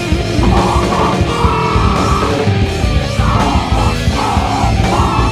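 Heavy metal band recording: distorted guitar and drums under harsh shouted vocals that come in short phrases.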